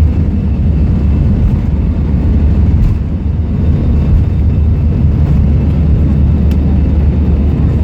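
Airbus A320 cabin noise heard from inside the cabin: the jet engines and airflow make a loud, steady low rumble.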